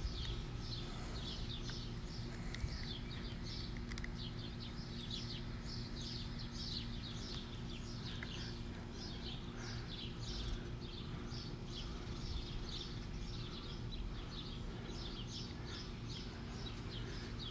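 Birds chirping, many short falling calls a few a second, over a steady low hum.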